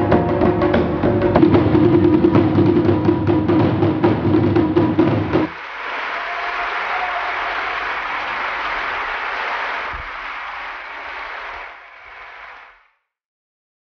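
Japanese taiko drums struck hard under a steady held note. About five and a half seconds in the drumming stops abruptly and a crowd applauds; the applause fades away shortly before the end.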